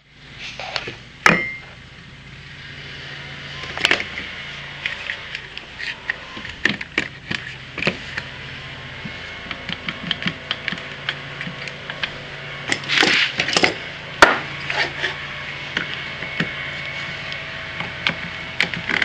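Irregular knocks and clanks of tools and parts being handled, over a steady low hum. The sharpest knocks come about a second in and near the middle.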